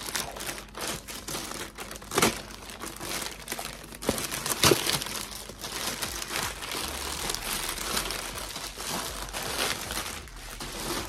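Plastic poly mailer bag crinkling and rustling as it is handled and opened, with two sharper, louder crackles, about two seconds and four and a half seconds in.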